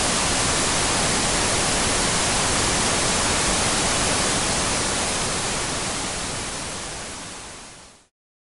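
Steady hiss of TV static, fading out over the last few seconds and cutting to silence near the end.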